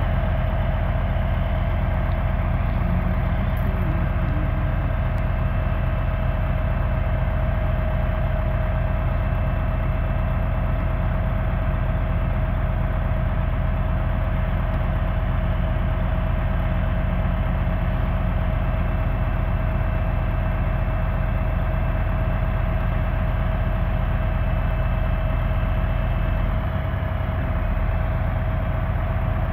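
An engine idling steadily: a constant low hum with a steady whine above it.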